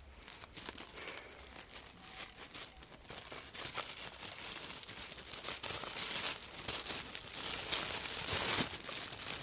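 Close crinkling and rustling of items being handled and rummaged through, getting louder in the second half.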